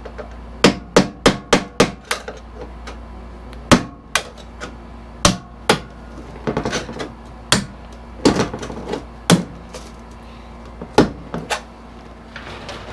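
Hammer strikes on the wooden shipping crate as it is knocked apart. A fast run of about seven blows comes first, then irregular single knocks and short clusters of taps.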